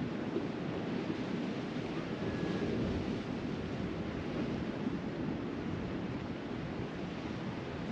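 Sea surf washing steadily on the shore, with wind on the microphone.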